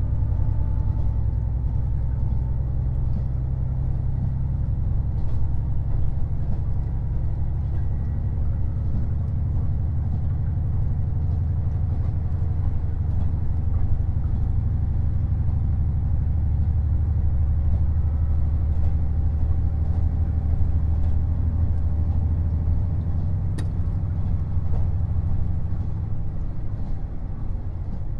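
Onboard running sound of a KiHa 48 500-series diesel railcar: a steady low rumble from its diesel engine and running gear, with faint clicks from the wheels crossing rail joints and one sharper click a little over twenty seconds in.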